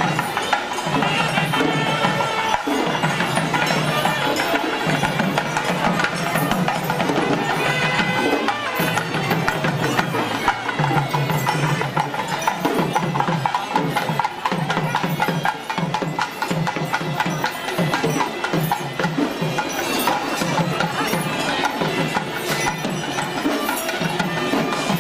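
Traditional Sri Lankan procession music: drums struck in rapid, dense rhythms, with a high wind instrument holding long notes above them.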